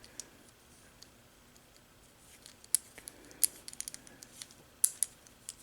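Small, sharp metallic clicks and ticks, scattered and irregular, starting about two seconds in, as a replacement screw is fitted into a scope mount.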